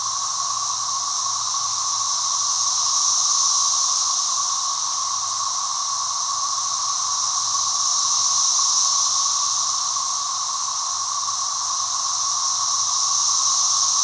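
Dense chorus of Brood XIX periodical cicadas (Magicicada), a ceaseless droning that swells and eases slowly about every five seconds.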